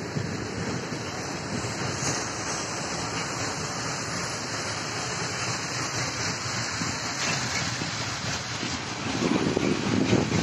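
Freight train of open-top wagons rolling past, a steady rumble and rush of wheels on rails, growing louder about nine seconds in, with wind buffeting the microphone.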